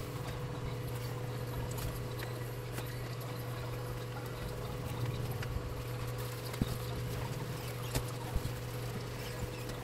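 Tissue rubbing and scrubbing across the bare glass of an LCD panel, cleaning it after the polarizer film has come off, with faint scratchy scuffs and a few sharp clicks in the second half over a steady low hum.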